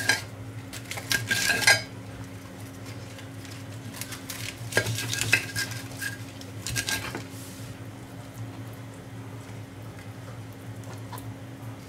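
Kitchen knife clinking and scraping against a china plate while iceberg lettuce leaves are cut and pulled apart, in four short bursts of clicks in the first seven seconds and quieter handling after that. A steady low hum runs underneath.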